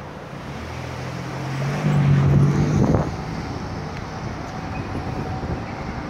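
Street traffic: a motor vehicle passes close by, its low engine hum building to loudest about two seconds in and dropping away about a second later, over steady city traffic noise.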